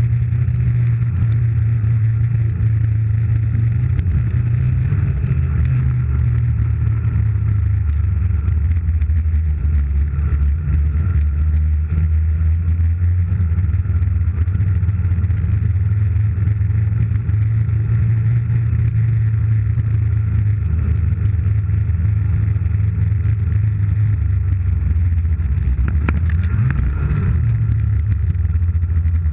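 Snowmobile engine running at a steady speed while towing a sled, a constant low hum, with a short burst of noise near the end.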